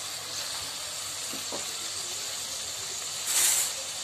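Chopped onion sizzling in hot oil in a kadhai, a steady frying hiss that swells briefly louder about three seconds in.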